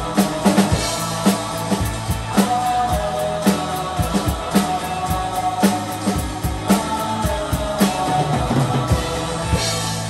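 Gretsch drum kit played along to a pop-rock backing track, with kick, snare and cymbal hits about twice a second. Near the end the playing stops on a final cymbal crash while the track's chord rings on.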